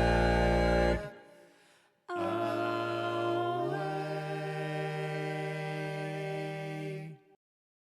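A band's loud held closing chord breaks off about a second in. After a second of silence a second sustained chord comes in, moves to new notes partway through, and cuts off abruptly near the end.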